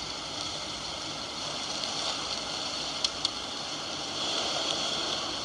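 Steady hissing background noise from a film soundtrack playing on a TV, with two faint clicks about three seconds in.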